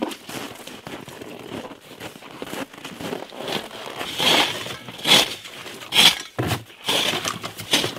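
Irregular crunching, scraping and knocking of live king crabs and gear being handled into a plastic tote, with a run of louder sharp scrapes in the second half.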